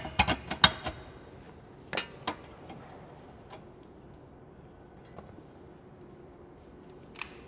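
Sharp clinks and clicks of small hard objects being handled: a quick run in the first second, two more about two seconds in, then scattered faint ticks and one last click near the end.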